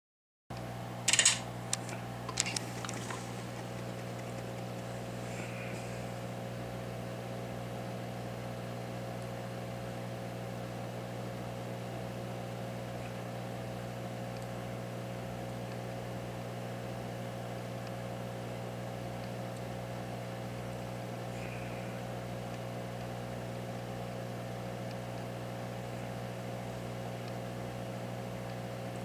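Steady mechanical hum of a bench machine's fan, several fixed tones holding unchanged, with a few sharp clicks and taps in the first three seconds.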